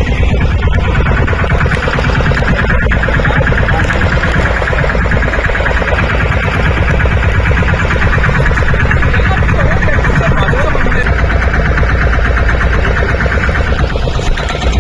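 Boat engine running steadily, a loud, rapid, even chugging.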